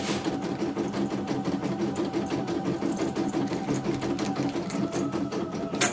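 CNY E900 computerized embroidery machine stitching a design in its hoop: a fast, even run of needle strokes over a steady motor hum, with one sharp click near the end.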